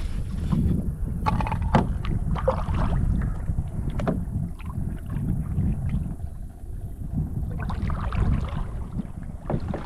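Wind rumbling on the microphone, with scattered short knocks and rustles over it.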